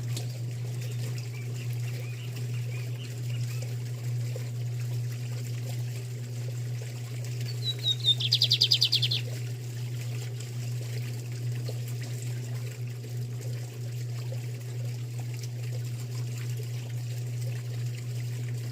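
A lined seedeater (bigodinho) sings one short burst of rapid, high repeated notes about eight seconds in, lasting under two seconds, over a steady low hum.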